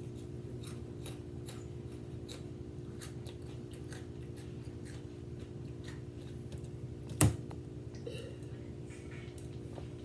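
Crunchy hot Cheetos being chewed: irregular small crunches, with one louder sharp click about seven seconds in.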